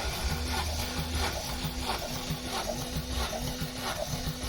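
Opel Z18XE 1.8 four-cylinder petrol engine cranking over on its starter motor with the accelerator held to the floor, for a compression test, with an even rhythmic pulse from the compression strokes.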